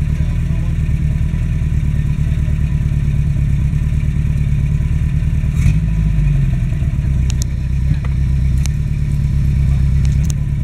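An engine running steadily at a low, even speed, with a few short sharp clicks in the second half.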